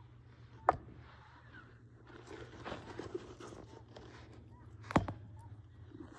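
Soft rustling and scraping in shredded-paper bedding as a guinea pig moves about and is petted by hand, with two sharp clicks, one under a second in and a louder one about five seconds in.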